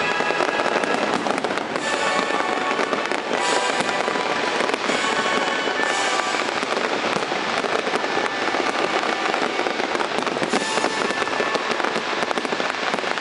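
Fireworks display: dense, continuous crackling and popping, with music playing underneath.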